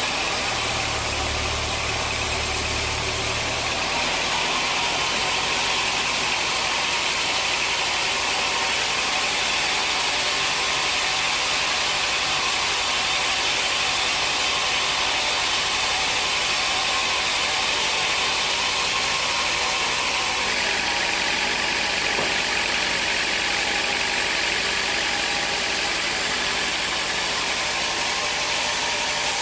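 Sawmill machinery running steadily, a continuous mechanical drone; a low hum drops away about four seconds in.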